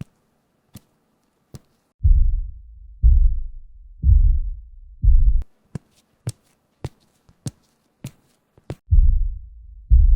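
Heavy, deep thuds about once a second, four in a row from about two seconds in and two more near the end, with scattered sharp light taps in between: inter-floor noise, banging heard through the ceiling from the flat upstairs.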